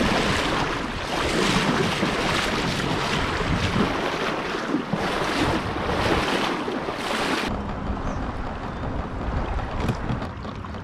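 Shallow river water rushing and splashing around a kayak hull as it is towed upstream through a riffle, with surging swishes and wind on the microphone. About three quarters of the way in it cuts to a quieter, duller wash of water with a low wind rumble.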